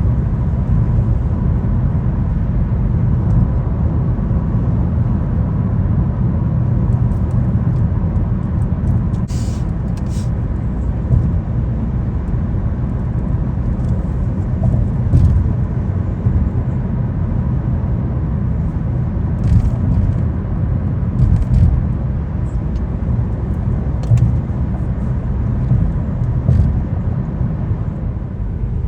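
Steady road and engine rumble of a car driving at highway speed, heard inside the cabin, with a few brief clicks or knocks now and then.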